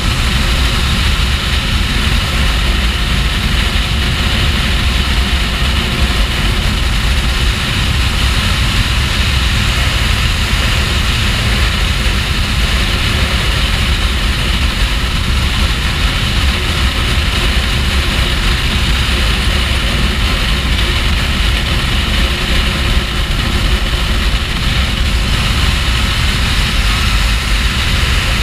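Kawasaki Ninja H2's supercharged inline-four running steadily at motorway cruising speed, under heavy wind rush on the bike-mounted microphone.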